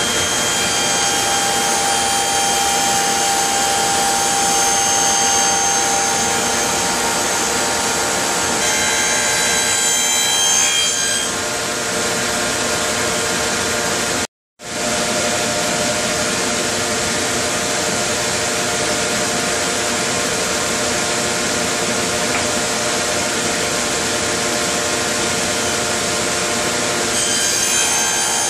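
Table saw running a stacked dado set, cutting a groove along a board in passes, with a steady high whine over the cutting noise. The sound breaks off abruptly for an instant about halfway through, then the saw continues.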